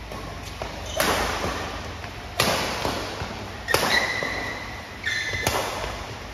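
Badminton racket strikes on a shuttlecock during a doubles rally, about five sharp hits a second or so apart, echoing in a large hall, with short shoe squeaks on the court between hits.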